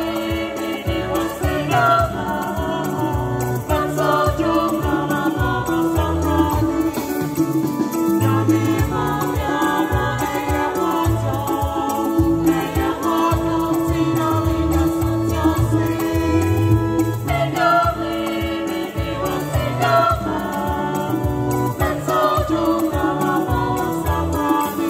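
Small vocal group singing a praise song in harmony, accompanied by a Yamaha PSR-SX700 arranger keyboard playing bass and chords over a steady percussion beat.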